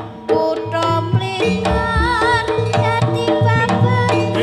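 Javanese jaranan gamelan music: quick hand-drum strokes under ringing pitched metal tones and a wavering high melody line. The music dips briefly at the start, then the drums come back in at full strength.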